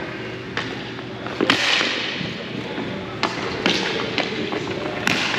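A string of separate thumps and knocks from play in a team game, the loudest about a second and a half in.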